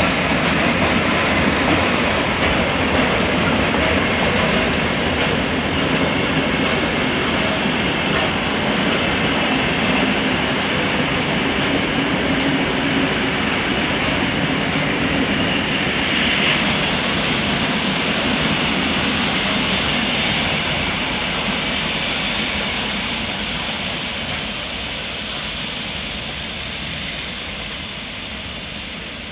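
Steam-hauled train of an Hr1 locomotive and old passenger coaches rolling past and away, wheels clicking about twice a second over rail joints. The rolling noise fades in the last several seconds as the train draws off.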